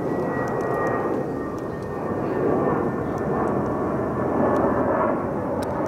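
Jet airliner departing Fukuoka Airport, passing over with a steady rushing roar. A thin high whine in the sound fades out about a second and a half in.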